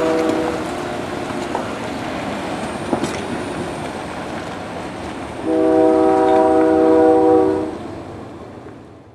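Diesel engine of a large tracked tractor running under load as it tows a loaded ejector scraper through mud. A loud, steady horn-like tone sounds for about two seconds past the middle, then the sound fades out.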